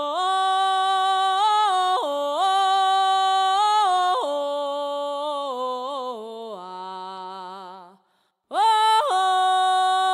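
A solo voice singing a wordless melody with no accompaniment. It holds notes and steps between them, wavers as it fades about seven seconds in, breaks off briefly, then swoops up into a long held note.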